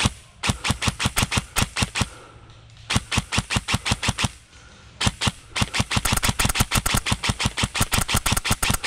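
Airsoft rifle firing in three strings of rapid shots, about eight to ten a second; the last string is the longest.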